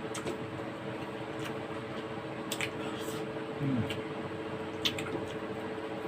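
Quiet eating at a table: a few light clicks of a spoon against a bowl over a steady background hum, with a short low hummed "mm" partway through.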